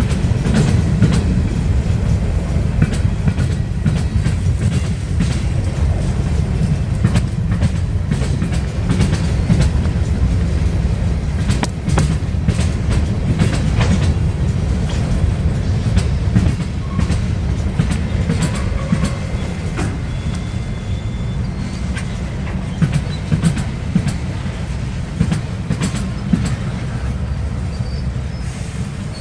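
Freight cars rolling slowly past: a steady low rumble of steel wheels on rail, with frequent sharp clicks and clanks from the wheels and couplers.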